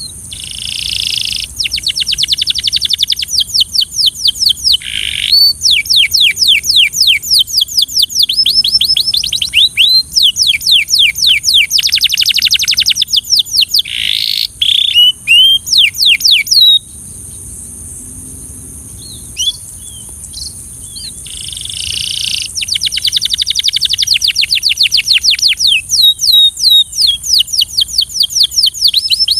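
Canary singing: long, fast trills of repeated downward-sweeping notes, breaking off for a few seconds past the middle with only a few scattered notes, then resuming. A steady high hiss runs under the song.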